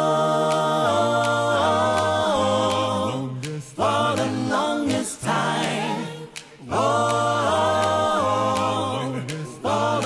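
Background music of a capella voices singing held chords in phrases a few seconds long, with short breaks between them.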